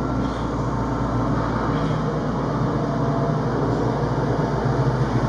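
Steady low machine hum, like an engine running, holding even with no distinct events.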